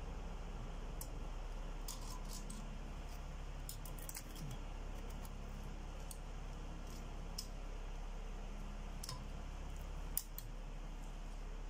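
Scattered sharp metallic clicks from a valve spring compressor working the valve springs and keepers on a GMC V8 cylinder head, with one louder click about ten seconds in. A steady low hum runs underneath.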